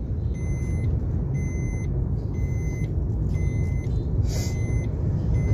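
Steady low rumble of engine and road noise inside the cabin of a moving car. A faint high beep repeats about every three-quarters of a second.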